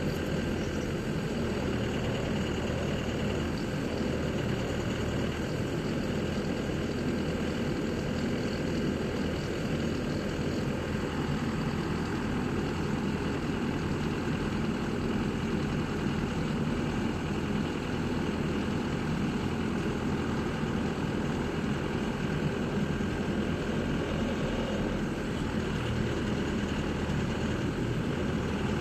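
FY300 water well drilling rig's Yuchai diesel engine running steadily at an even, unchanging pitch.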